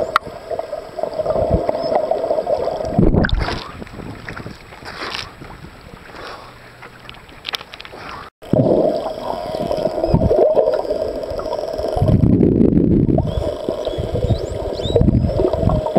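Underwater water noise around a camera swimming with a pod of dolphins: steady gurgling and rushing, with a few faint, short, rising whistles from the dolphins near the end. The sound is quieter for a few seconds in the middle, cuts out abruptly for a moment, then resumes louder.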